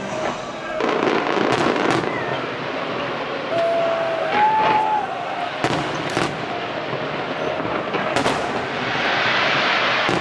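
Aerial fireworks shells bursting overhead: a series of sharp bangs over a continuous rumble and crackle, with a short whistling tone about four seconds in and a hissing, crackling shower near the end.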